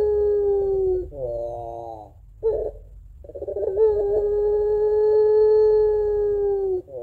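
Puter pelung, a long-voiced Barbary dove, cooing in its long drawn-out 'crying' call. A long steady held note ends in a shorter note that falls in pitch, a brief note follows, and then a second long held note starts.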